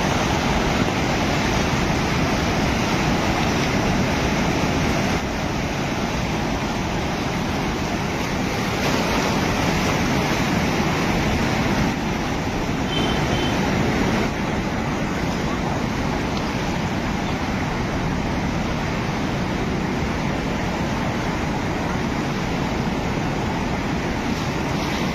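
The Alaknanda river in spate, its fast, muddy floodwater rushing with a loud, steady noise. The river is swollen by heavy rain in the mountains and running near its danger mark.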